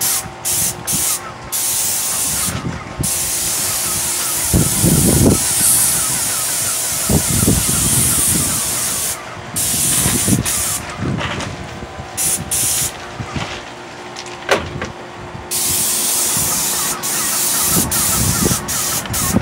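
Airless paint spray gun hissing as it sprays paint onto a wall, stopping and restarting many times as the trigger is released and pulled, with a longer stop a little past the middle. Low rumbling comes and goes underneath.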